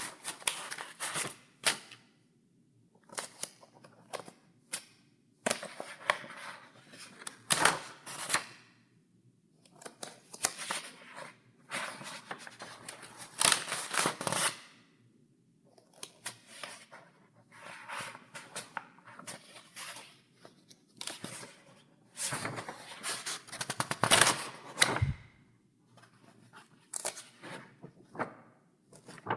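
Paper pages in a file being turned one after another: crisp rustles and snaps at irregular intervals, with short pauses between turns.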